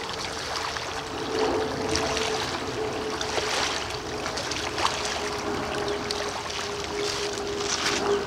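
Small river waves lapping and trickling on a pebble shore, with a steady distant motor drone, one even hum that sinks slightly in pitch, running underneath.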